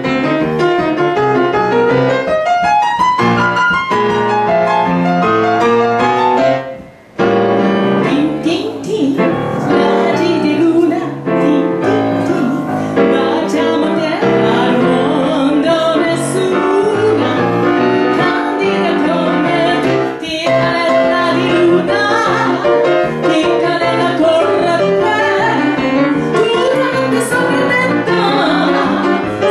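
A woman singing into a microphone, accompanied on grand piano. The music breaks off briefly about seven seconds in, then voice and piano carry on together.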